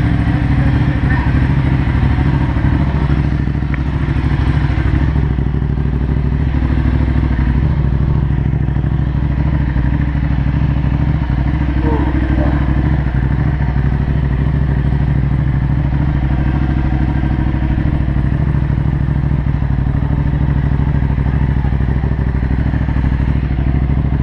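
2013 Ducati Hypermotard SP 821's 821 cc L-twin engine, fitted with a Termignoni full race exhaust, running steadily at idle or low revs without revving.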